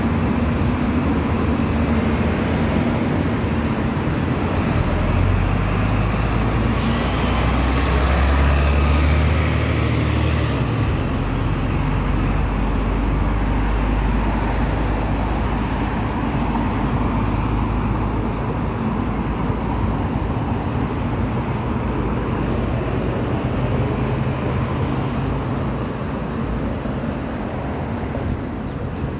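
Road traffic on a busy multi-lane city street: cars and heavy vehicles driving past in a continuous noise. A heavy vehicle's deep engine sound is loudest from about five to eleven seconds in.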